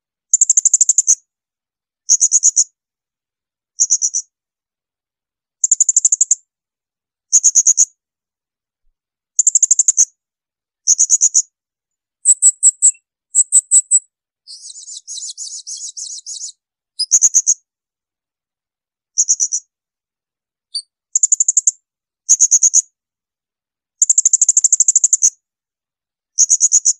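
Blue-crowned hanging parrot (serindit) giving shrill, piercing 'tembakan' calls. Each call is a short, rapid trill of very high notes, and they repeat every one to two seconds with silent gaps. About halfway through, a longer, quieter scratchy chatter breaks the run.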